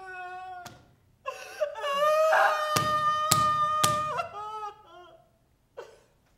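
A woman's exaggerated, acted crying: a short sob, then a long, high wail broken by three sharp thumps, trailing off in short whimpers.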